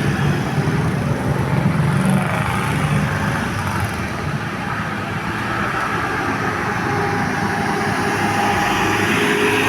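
Large bus engine running as it passes along a road, with traffic noise; the deep engine rumble is strongest in the first few seconds, then eases.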